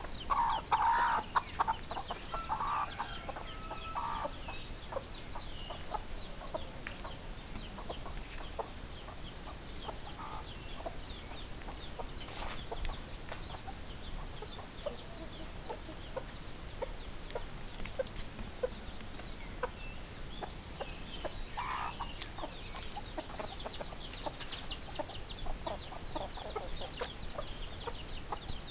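Chickens clucking, with a louder run of calls in the first few seconds and another call a little over twenty seconds in, and many short clucks and high chirps in between.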